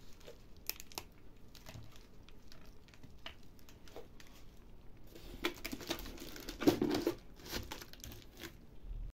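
Bubble wrap crinkling as a wrapped parcel is handled and pressed down into a cardboard box. The scattered crackles get busier and louder in the second half.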